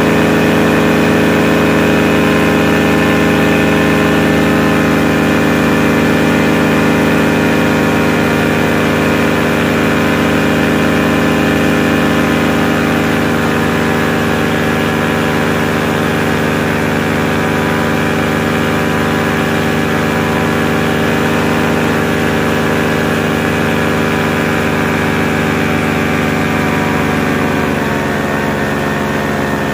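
Paramotor engine and propeller running steadily under power in flight. Near the end the pitch begins to fall as the engine slows.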